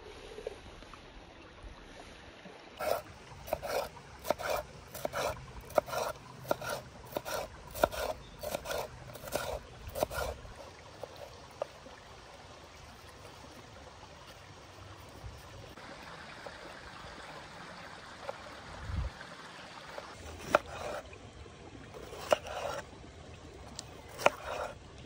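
Knife chopping vegetables on a wooden board: a run of about fifteen sharp knocks at roughly two a second, then a few scattered knocks near the end.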